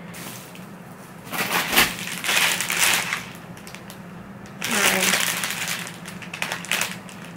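Thin plastic bags crinkling and rustling as they are handled, in two long stretches.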